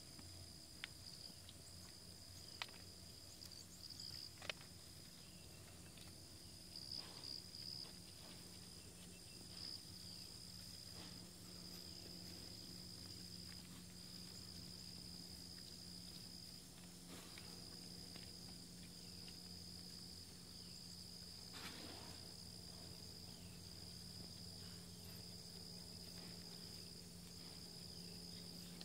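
Insects trilling steadily in a high, continuous chorus with short breaks, with a few sharp clicks in the first several seconds.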